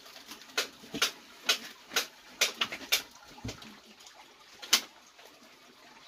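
A run of sharp, irregular clicks and knocks, about ten in the first five seconds, the loudest about three-quarters of the way through.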